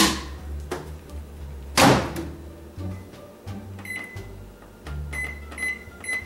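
GE over-the-range microwave: the door is shut with a loud thump about two seconds in, then short high beeps, about four, as the keypad buttons are pressed to set the cooking time.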